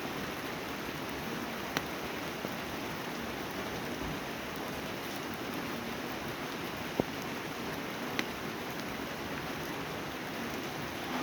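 Steady rain falling, with a few single louder drops or drips about 2, 7 and 8 seconds in.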